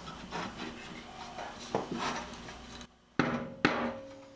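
Knocks and clatter of metal being handled on an aluminum plate and steel bending die. Near the end come two sharp knocks about half a second apart, each leaving a short metallic ring.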